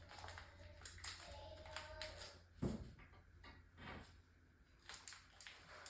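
Faint handling sounds of wooden furniture parts: scattered light clicks and taps, with one louder knock about two and a half seconds in.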